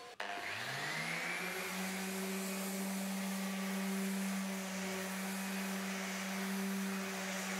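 Electric random orbital sander starting up, its motor rising in pitch over about a second and a half, then running steadily while sanding the fuzz off freshly cut holes in MDF.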